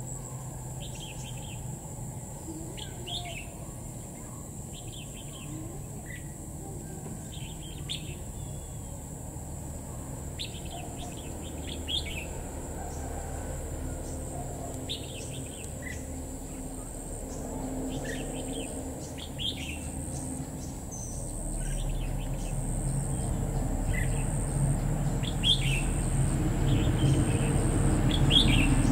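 Red-whiskered bulbul singing short, chirpy warbled phrases every second or two, over a steady high-pitched whine. A low rumble grows louder over the last third.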